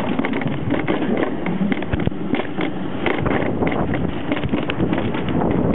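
Summer bobsled (alpine coaster) sled running along its track: a dense, continuous rattle and rumble with many small clicks, and wind buffeting the microphone.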